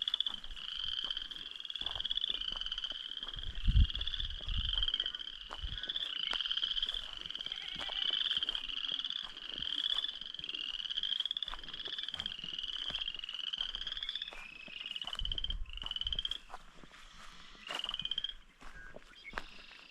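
A loud chorus of frogs: many short, rising, pulsed trills overlapping and repeating about once a second, thinning out near the end. A low thump about four seconds in.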